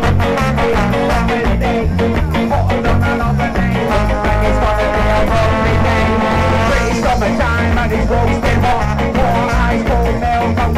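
Live band playing an instrumental passage: drums keep a steady beat under a bass line and chords, with a long held chord about four to seven seconds in.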